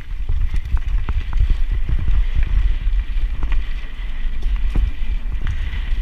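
Mountain bike riding fast down a loose dirt trail: a steady low wind rumble on the microphone, tyres rolling on dirt, and scattered short clicks and rattles from the bike over the bumps.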